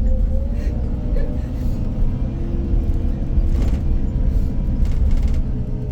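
Iveco Crossway Line 12 bus under way, heard from inside: a steady low engine and road rumble with thin whining tones that shift in pitch partway through. The bus's sound is altered from normal.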